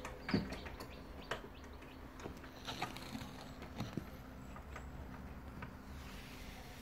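Newly hatched chicks inside a home-made egg incubator: scattered light taps and short chirps over the incubator's steady hum.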